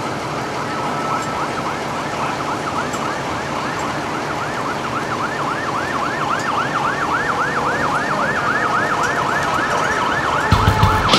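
Emergency vehicle siren in a fast yelp, its pitch sweeping up and down about three times a second and growing louder. Music with drums comes in near the end.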